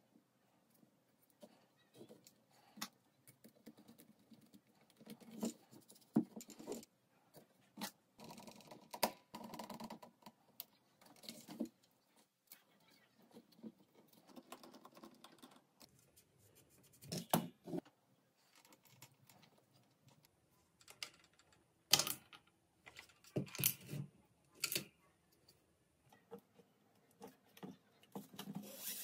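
Irregular clicks, taps and knocks of small wooden parts being handled and fitted together, with light rustling in between. The loudest is a sharp click about three-quarters of the way through.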